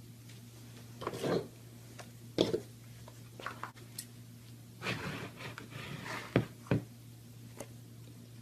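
Slime being handled: an irregular string of soft squishes and crackles, with two sharp pops a little after six seconds in, over a steady low hum.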